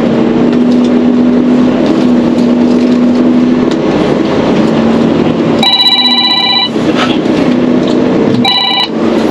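Steady drone of the Mercedes-Benz Actros SLT heavy-haul truck heard inside its cab, with an electronic ringing tone that sounds twice: about a second long at roughly six seconds in, then a shorter burst near the end.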